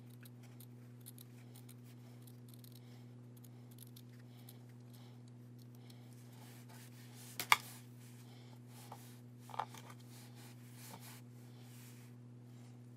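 Scissors snipping through craft felt, faint over a steady low hum. A sharp click a little past halfway, and a smaller one about two seconds later, stand out as the loudest sounds.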